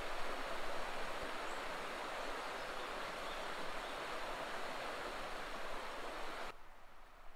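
Gloucester River rushing steadily over a shallow rocky riffle, an even hiss of running water that cuts off suddenly about six and a half seconds in.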